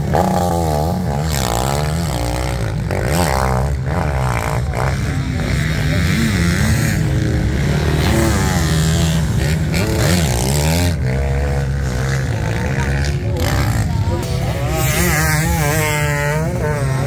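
Several motocross bikes racing at once, their engines revving up and down, with the nearer bikes climbing in pitch as they pull away.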